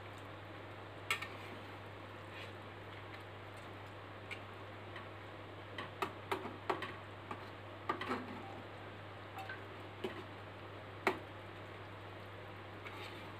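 A metal spatula clinking and scraping against an enamel pot while stirring a thick simmering sauce: scattered light clicks, most of them bunched in the middle, over a steady low hum.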